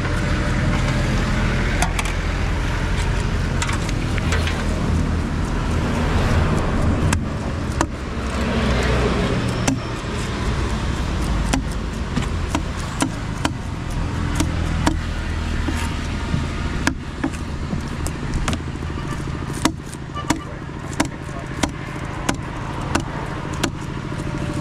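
Steady low hum and market din, with a run of sharp, evenly paced knocks from about halfway, roughly three every two seconds: a knife chopping fish on a cutting block.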